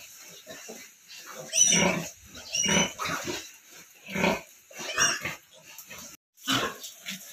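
A nursing sow grunting repeatedly while her piglets suckle, with short high-pitched piglet squeals about two seconds in.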